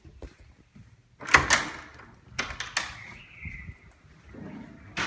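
A door being handled: a sharp latch click about a second in, two more clicks, a brief faint squeak, then a heavier thump right at the end.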